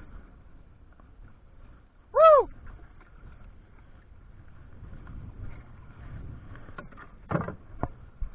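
Small boat running through rough sea in strong wind, a steady rushing noise of wind and water. About two seconds in, a short loud call rises and falls in pitch. Several sharp knocks come near the end.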